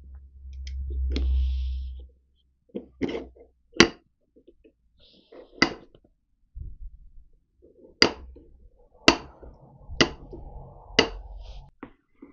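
Steel parts of a lathe collet chuck being fitted together by hand on a bench. A low rumble comes as the sleeve is pressed down onto the chuck body, then there are several sharp metallic knocks and clinks. In the last few seconds come scraping strokes about once a second, as the knurled steel ring is worked over with a tool.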